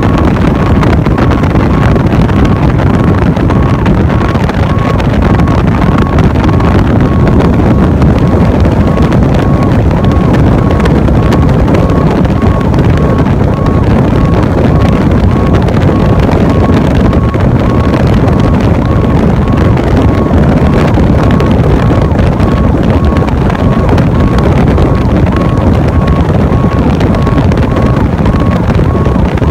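Heavy wind buffeting on a microphone held out of a moving fire truck's cab window, over the truck's engine and tyre rumble at highway speed. A faint, regularly repeating high beep sounds underneath.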